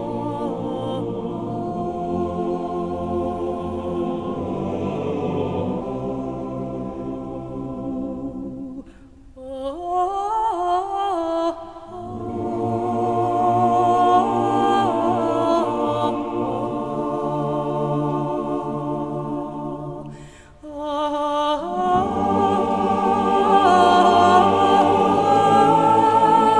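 Background music: a song with long held notes over a steady bass line, dropping away briefly twice.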